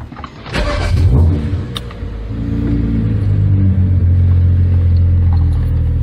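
BMW N55 turbocharged inline-six running at idle, heard from inside the car's cabin, with a brief clatter about a second in. The engine is freshly started and still running rich while it relearns.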